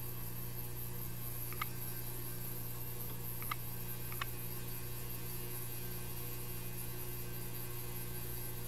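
Steady electrical mains hum, with a few faint light clicks about one and a half, three and a half and four seconds in.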